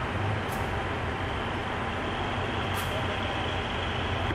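GE diesel-electric locomotives running with a steady low engine rumble as a passenger train pulls into the station. Two brief high hisses, about half a second in and near three seconds, are typical of air released from the brakes.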